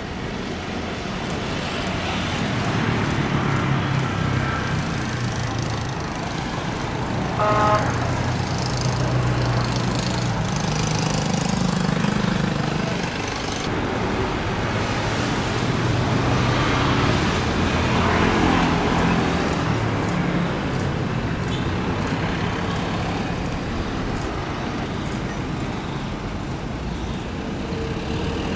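Steady rumble of jet engines from wide-body airliners landing, mixed with road traffic noise. A brief horn-like tone sounds about seven and a half seconds in.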